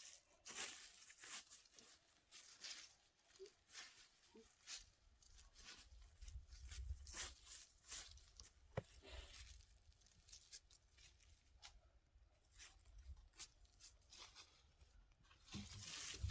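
Faint, irregular crackling and snapping of dry twigs and kindling, with a low rumble in the middle.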